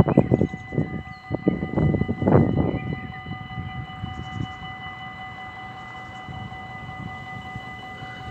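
Dutch level-crossing warning bell ringing steadily as a high, held tone of several pitches, sounding while the lights flash and the barriers are down, to warn of an approaching train. Low rumbling noise comes and goes under it, loudest in the first three seconds.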